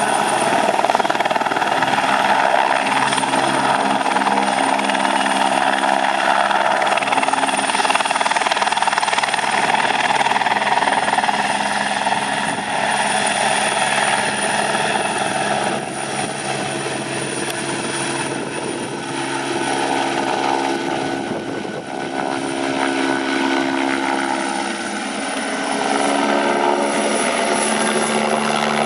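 Aerospatiale AS 355 N Twin Star helicopter flying low after takeoff: its twin turboshaft engines and rotor running steadily, with a thin high turbine whine over the rotor noise. The sound eases a little in the middle and swells again near the end as the helicopter passes.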